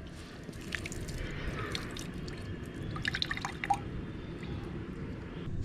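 Scattered light clicks and drip-like pops over a steady low hum, with a small cluster of pops about three seconds in, typical of kitchen cooking sounds.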